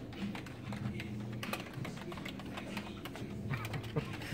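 Irregular clicking of a computer keyboard being typed on, over a low hum.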